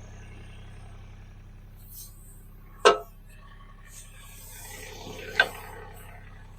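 An engine idling steadily with a low hum, broken twice by a sharp knock or clunk, about three seconds in and again about two and a half seconds later.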